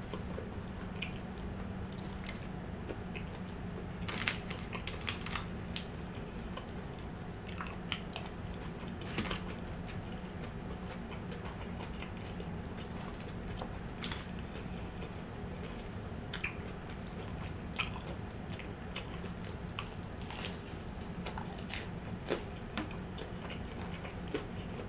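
A person eating fried chicken and chicken pot pie, with soft chewing and biting and scattered light clicks of a fork against the pot pie bowl. A faint low steady hum runs underneath.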